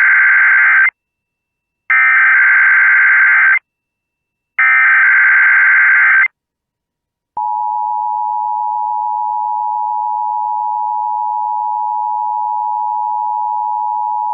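Emergency Alert System SAME header: three bursts of screeching digital data encoding a Required Monthly Test. About seven seconds in they give way to the steady two-tone EAS attention signal (853 and 960 Hz).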